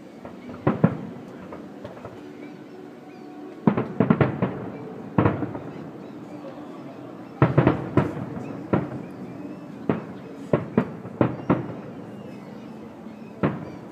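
Aerial firework shells bursting at a distance: a series of sharp bangs, some single and some in quick clusters of several, each with a short echoing tail.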